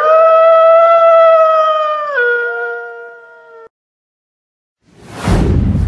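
A wolf's single long howl: it rises at the start, holds a steady pitch, drops to a lower pitch about two seconds in and fades out. After a short silence, a swelling whoosh with a deep rumble begins near the end.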